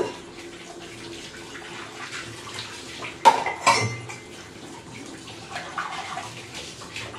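Tap water running into a steel kitchen sink while steel utensils are washed by hand, clinking against each other and the sink. There is a sharp metal clatter about three seconds in.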